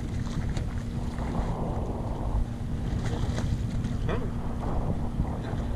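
Wind buffeting the microphone over a steady low hum from a fishing boat's engine, with water washing against the hull.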